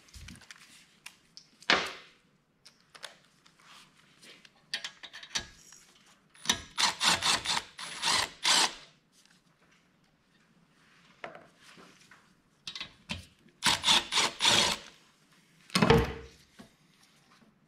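Milwaukee M12 Fuel cordless ratchet spinning out the 8 mm tappet-cover bolts on a 168F small diesel engine. It runs in two spells of short whirring pulses, about a third of the way in and again about three quarters through, with knocks and clacks of parts and tools being handled between them.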